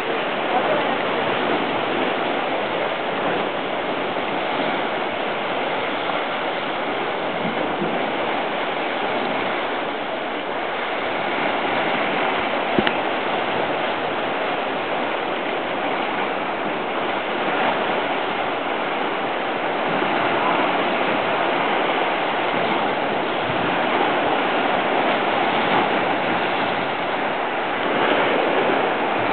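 Lake Superior waves washing and splashing against a rocky shoreline: a steady rush of water.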